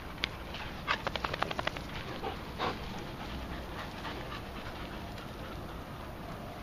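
Dogs panting after play: a fast run of breaths about a second in, then a couple of softer breaths.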